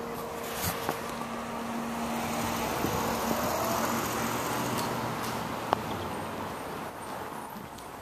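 City street traffic: a car passing, its engine and tyre noise swelling and then fading over several seconds, with a steady low hum beneath. A single sharp click about two-thirds of the way through.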